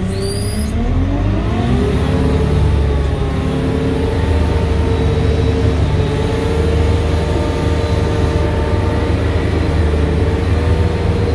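Sherp 10x10 all-terrain vehicle's diesel engine revving up over the first two seconds, then running at a steady speed.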